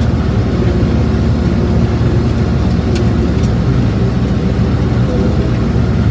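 International Harvester 1086 tractor's six-cylinder diesel running steadily under load while baling hay, heard from inside the cab.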